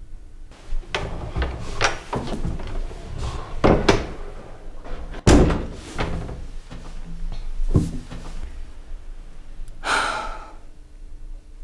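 A door being handled and banged shut: the handle and latch click, and there is a loud slam about five seconds in among smaller knocks and rustles.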